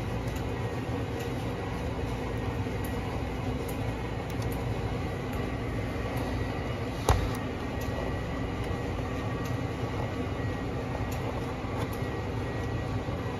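Steady background rumble with a faint hum, and one sharp knock about halfway through.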